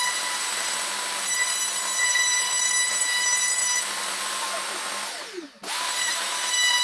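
Makita RTC0700C compact router running at steady speed with a high whine, routing a recess into OSB. About five seconds in the sound sweeps down and drops out for a moment, then the whine cuts straight back in.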